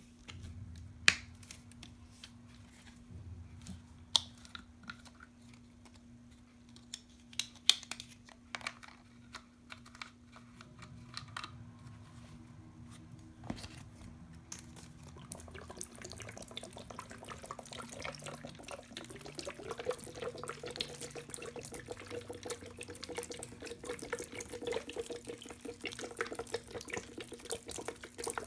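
A few sharp plastic clicks and knocks in the first half as a bottle of green liquid cleaner is opened, then the cleaner pouring out of the upturned bottle onto sponges in a plastic tub, a steady liquid splashing that builds and grows louder toward the end.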